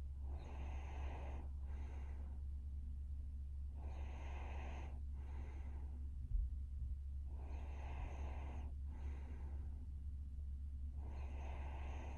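A young woman snoring in her sleep, slow and regular: about every three and a half seconds a longer snoring breath followed by a shorter one. A steady low hum runs underneath, and there is a brief thump about six seconds in.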